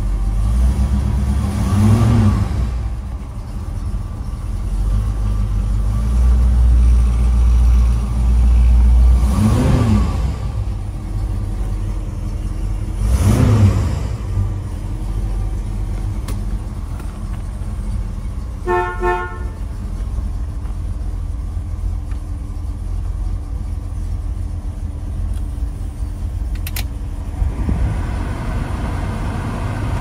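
1969 Mercury Cougar's engine idling, with the revs rising and falling three times. About two-thirds of the way through, the car horn sounds in a quick run of short toots.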